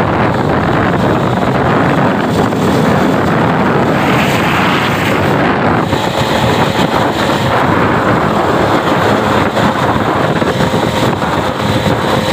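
Loud, steady wind rush buffeting the microphone of a motorbike riding along a road, with the engine's faint steady hum underneath.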